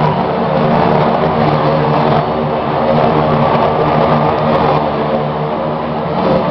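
Motorcycle engines running loud and steady, holding an even pitch without revving up or down.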